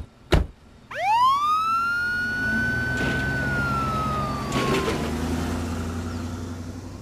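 Two sharp bangs, then an ambulance's siren winds up into one long rising wail, holds and slowly sinks, over the low rumble of its engine. The sound fades steadily as the ambulance drives off.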